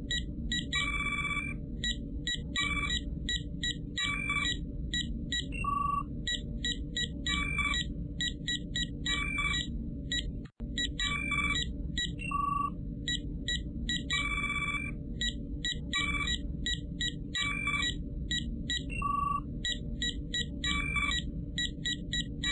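Star Trek-style LCARS computer console sound effects: a steady low hum under a repeating pattern of short electronic beeps and chirps. The sound cuts out briefly about ten seconds in.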